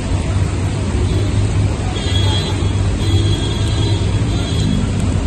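Heavy rain pouring, with cars driving slowly through floodwater on the road; music plays underneath.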